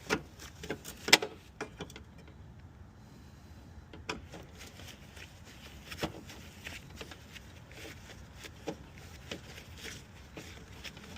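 Scattered clicks and knocks of hand tools and parts being handled while working on a car's radiator mounting, the loudest a sharp knock about a second in.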